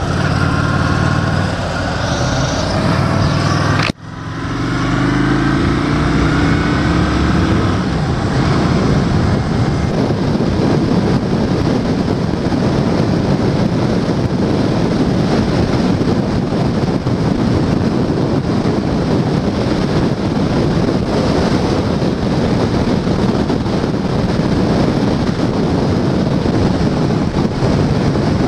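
Honda Shadow 750's V-twin engine running under way. About four seconds in there is an abrupt cut. The engine then pulls up, rising in pitch as the bike accelerates, and settles into steady cruising under a dense rush of wind and road noise.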